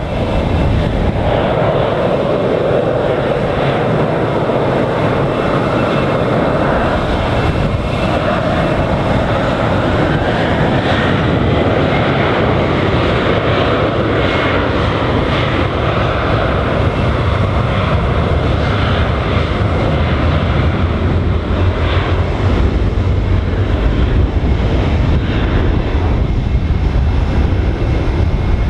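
Embraer E190 airliner's two GE CF34 turbofan engines running steadily as the jet taxis, a continuous jet rush and whine. A deeper rumble builds over the last several seconds.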